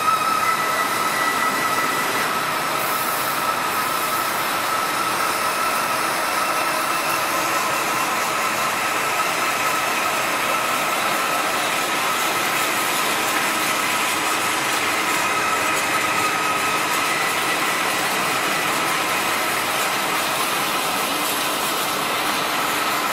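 Hydraulic double-chuck spindle veneer lathe running: a steady machine whir with a constant high whine and a fainter, higher tone that comes and goes.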